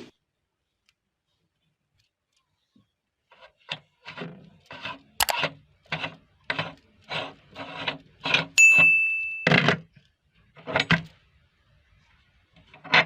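Meat grinder crushing cream biscuits, in a run of short grinding crunches a little under two a second, with a sharp click and a brief ringing tone near the middle.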